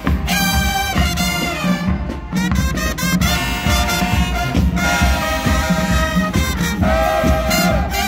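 Show-style marching band playing live while marching: loud brass chords from trumpets and trombones over booming bass drums and a drumline, in punchy phrases with brief breaks between them.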